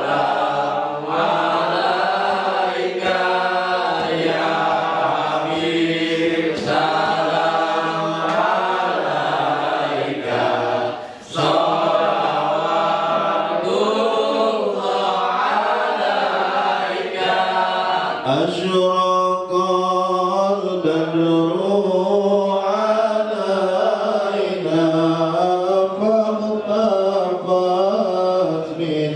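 A man chanting a devotional Islamic salawat in Arabic into a microphone, in a long, wavering melody, with a brief pause for breath about eleven seconds in.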